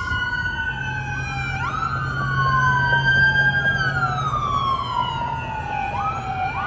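Police vehicle sirens wailing, two or more overlapping. Each tone sweeps up quickly and then falls slowly, and a fresh upsweep starts every few seconds.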